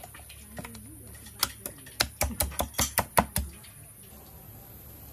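Wet slapping and squelching of hands working marinade into raw chicken pieces: a quick run of sharp slaps, about four a second, over two seconds in the middle. A dove coos once near the start.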